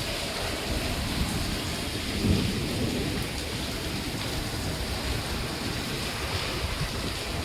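Steady rain with a low thunder rumble underneath, swelling slightly about two seconds in.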